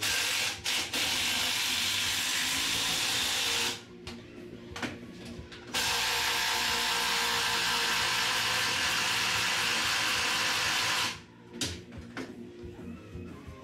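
A pneumatic air tool running in two long bursts, the first about four seconds and the second about five, with a few short blips at the start and near the end; the hiss of its air is loud over quieter background music.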